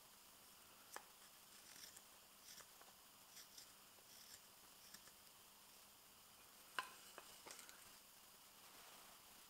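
Faint short slicing scrapes and clicks of a Morakniv 106 carving knife paring shavings from a fresh maple spoon, with one sharper click about two-thirds of the way through.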